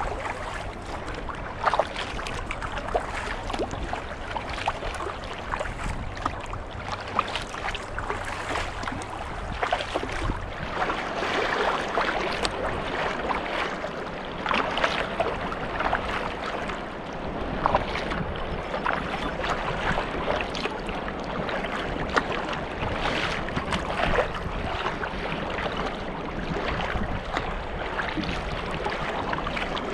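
Water splashing and dripping around a sea kayak under paddle, with waves slapping the hull and wind on the microphone. Many short irregular splashes over a steady rush of water.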